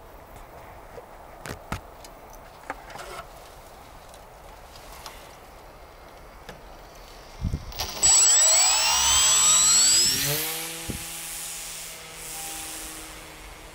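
Footsteps rustling through long grass, then about eight seconds in the motor and propeller of a radio-controlled model glider start up loud with a high whine as it is hand-launched. The pitch slides as the model climbs away, and the sound fades near the end.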